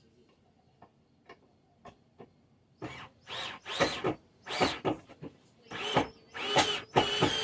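Power drill driving screws into wood, run in a string of short bursts that start about three seconds in, each spinning up and slowing, after a few faint clicks.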